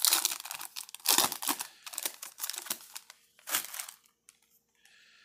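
Foil trading-card pack wrapper being torn open and crinkled as the cards are pulled out. A run of sharp crackles that stops about four seconds in.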